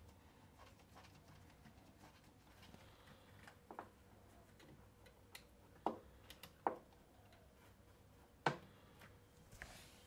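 Faint, scattered clicks and light knocks of a T20 Torx screwdriver undoing screws and a plastic motor casing being worked loose inside a washing machine's lower cabinet. A handful of sharper clicks a second or so apart, the loudest about eight and a half seconds in.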